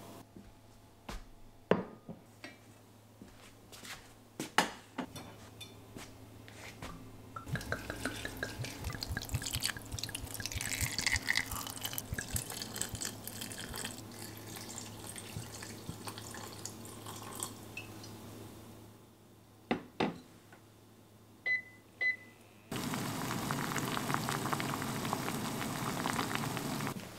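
Red wine poured from a bottle into an enamel saucepan of sliced apples, lemon and whole spices, splashing and glugging for several seconds before it tails off, after a few light clicks of the fruit and spices being set in. Two short beeps from the hob's controls follow, then the wine simmers with a steady bubbling hiss.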